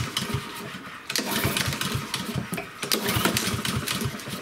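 Honda GCV160 lawnmower engine being cranked with the pull-cord in two pulls, with a short break about a second in. It turns over with rapid, even chuffs but does not start. The auto-choke is stuck open because its thermal wax cartridge has failed, so the cold engine cannot get enough fuel to start.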